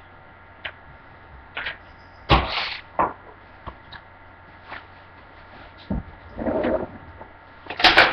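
A few sharp knocks and clatters of things being handled, the loudest about two seconds in and another at the end, with quieter taps between.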